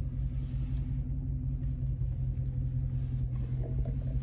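Dodge Charger Scat Pack 392's 6.4-litre HEMI V8 idling with a steady low rumble.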